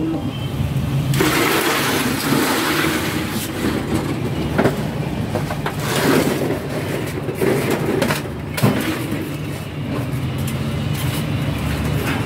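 Glass bottles knocking in a plastic crate and packs of bottled water being lifted and set down, with several sharp knocks, over a steady low motor hum.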